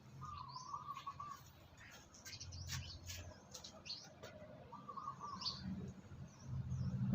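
Birds chirping and singing, with many short high chirps and a warbling phrase that comes twice, once near the start and again about five seconds in.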